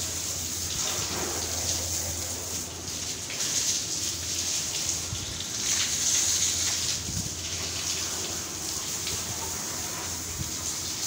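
Water running from a garden hose and splashing over a motorcycle and onto wet concrete: a steady hiss that swells and eases as the stream moves, with a steady low hum beneath.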